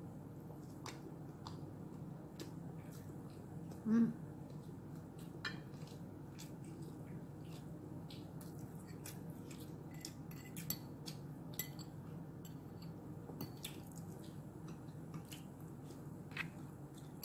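Scattered light clicks and clinks of cutlery against ceramic plates and bowls as food is picked up during a meal, over a steady low room hum. A brief vocal sound about four seconds in is the loudest moment.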